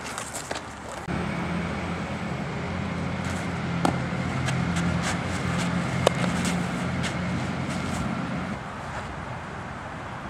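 A low, steady engine hum starts abruptly about a second in and fades out near the end. Over it come two sharp pops of a softball smacking into a leather glove, about four and six seconds in, with a few fainter clicks between.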